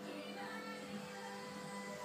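Quiet background music with sustained notes.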